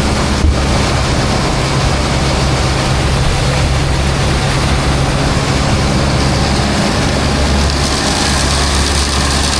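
Heavy engine running steadily at an even speed, with a steady low hum.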